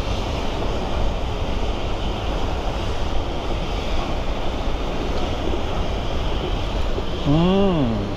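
Wind buffeting the microphone over the steady rush of choppy water from a power plant's warm-water outflow current. Near the end a person's voice gives one short rising-and-falling hum.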